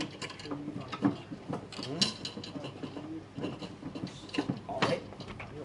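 Handmade wooden drawers being slid into and knocked against the compartments of a traditional wooden multi-drawer cabinet, making a run of irregular light wooden knocks and clicks.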